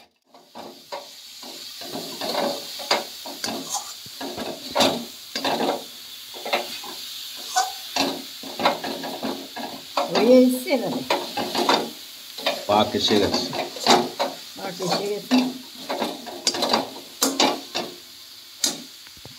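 Metal spatula stirring and scraping a thick grated-coconut and jaggery filling around an aluminium kadai, in irregular strokes over a faint steady hiss. The filling is being stirred continuously until it cooks down and binds.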